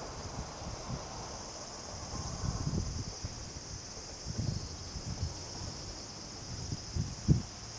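Steady high-pitched chorus of summer insects, broken by irregular short low rumbles, the strongest near the end.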